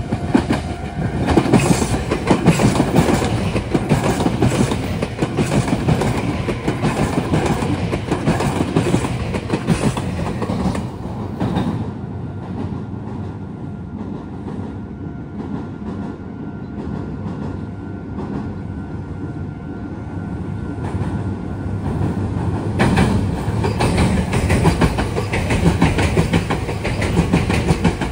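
Meitetsu electric commuter trains passing close by, the wheels clacking in a fast rhythm over rail joints and points. A quieter, smoother stretch with fewer clacks comes in the middle, and a second train runs by loudly near the end.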